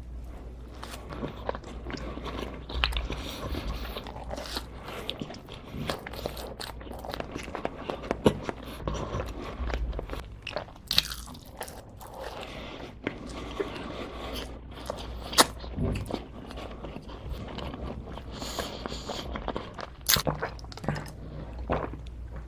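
A person biting and chewing crunchy food close to the microphone: irregular crisp crunches throughout, with a few sharper, louder bites.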